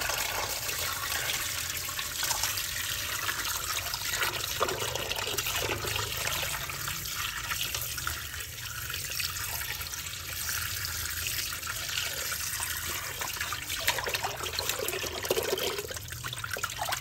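Water pouring from a tap into a metal basin while hands swish and rub pieces of skinned frog in it, with irregular splashing.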